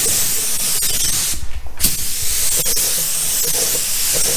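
Paint spray gun spraying, a steady loud hiss of air and atomised paint, with a short break about one and a half seconds in when the trigger is let off.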